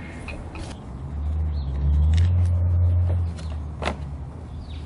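A low rumble swells up about a second in and fades after about three seconds. A few sharp clicks come from hands handling the lawnmower's plastic air-filter housing.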